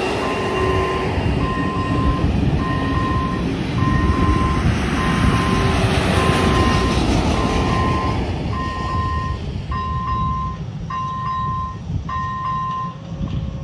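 A regional passenger train rolls across the level crossing with a steady rumble and clatter of wheels on the rails, under the crossing's electronic warning bell beeping about once a second. The train noise fades about ten seconds in as it clears the crossing, and the warning beeps stop near the end.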